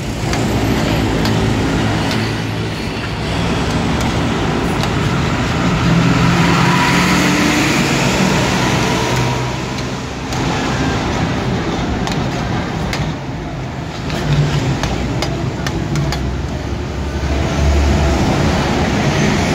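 Steady road-traffic noise with a low engine drone, over which two metal ladles clank and scrape against a large pan as a big batch of rice noodles is tossed.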